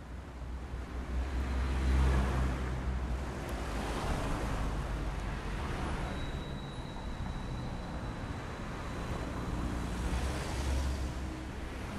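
Road traffic: a steady low rumble of vehicles, swelling as cars pass about two seconds in and again near the end.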